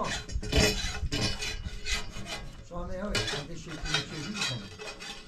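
Metal spatula scraping and stirring across a large flat metal pan over a wood fire, a rapid series of rasping strokes.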